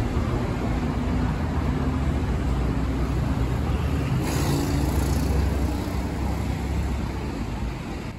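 City street traffic: cars and vans passing with a steady low engine and tyre rumble. One vehicle goes by close about four seconds in with a brief rush of tyre hiss, and the traffic sound fades near the end.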